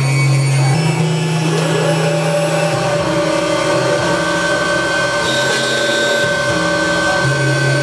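Electronic drone and noise music played live on tabletop electronics: a dense, machine-like wash of sustained tones over hiss. A low buzzing drone drops out about three seconds in and returns near the end, while a high steady tone holds and a middle tone slides up in pitch about a second and a half in.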